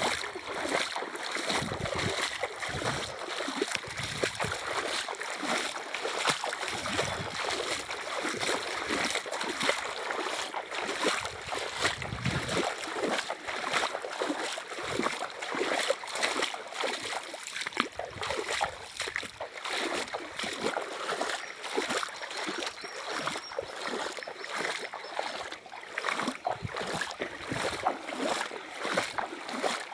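River water flowing and splashing: a steady rush made up of many small irregular splashes.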